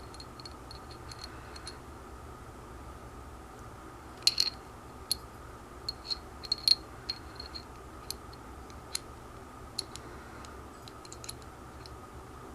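Small metal clicks and taps of Beretta 92FS pistol parts being handled and fitted together during reassembly, scattered irregularly through the second half, over a low steady hum.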